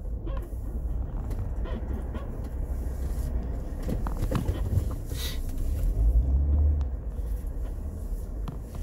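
Low engine and road rumble inside a car's cabin as it drives, swelling a little about two-thirds of the way through, with a few small knocks and a brief rustle.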